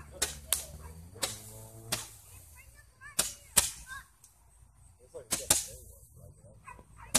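Fireworks going off: a string of about eight sharp cracks and bangs at uneven intervals, the loudest about halfway through.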